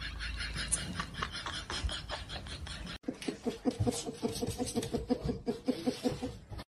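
A person laughing in quick, even pulses, about five or six a second, from about three seconds in. Before that comes a fast run of short crackly sounds that ends at an abrupt cut.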